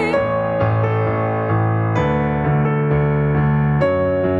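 Nord Piano 2 stage piano playing sustained chords without voice, changing every half second to a second: an instrumental break between sung lines of a gospel song.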